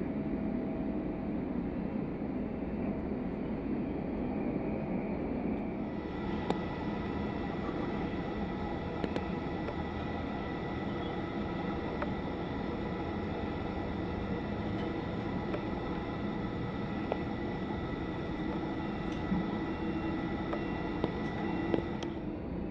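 Steady rumble of jet aircraft and ground equipment on an airport ramp. About six seconds in, a steady high whine joins it, along with a few faint clicks.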